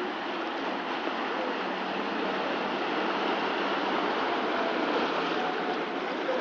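Steady rushing and splashing of floodwater churned up by a car driving through a flooded street.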